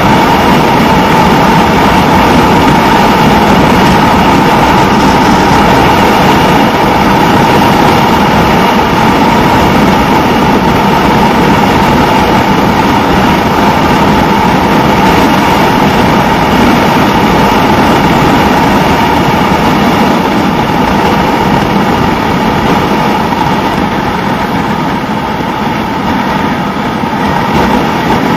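Suzuki SV650N motorcycle's V-twin engine running steadily at road speed, with steady wind rush over the bike. The level drops a little for a few seconds near the end, then picks up again.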